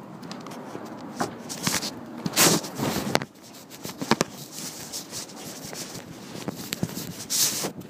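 Handling noise from a phone being covered and moved: rustling and scraping with scattered clicks, loudest about two and a half seconds in and again near the end.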